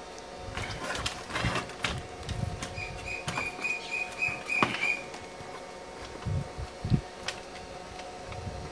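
Clicks, knocks and light thuds of hands handling the LED TV's panel and inverter connectors during reassembly. About three seconds in comes a quick run of about seven short high chirps.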